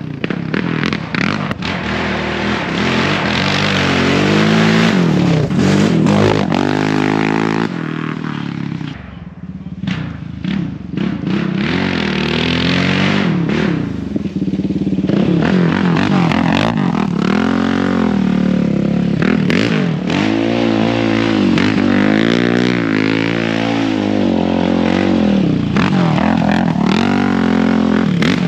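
Yamaha Raptor 700 sport quad's single-cylinder engine being ridden hard. It revs up and drops back again and again as the throttle is worked. The engine eases off briefly about nine seconds in, with a few knocks and rattles, then pulls hard again.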